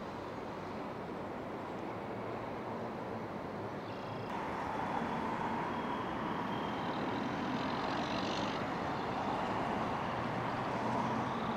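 Road traffic noise, a steady rushing hum of passing vehicles that steps up in level about four seconds in.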